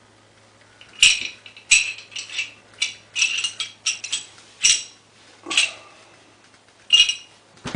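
Metal clicks, clinks and short scrapes of a Beretta PX4 Storm pistol's slide and small parts being handled during field-stripping, about a dozen sharp clicks and rattles spread from about a second in to near the end.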